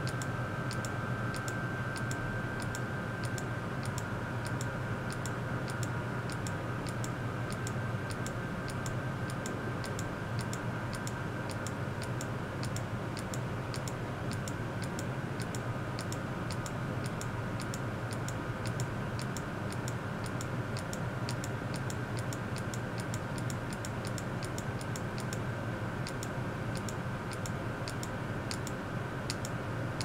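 Steady electrical hum with a few faint high steady tones, overlaid by light regular ticks at about three a second.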